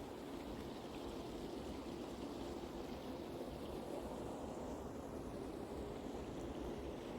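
Small river flowing steadily: an even, unbroken rush of water.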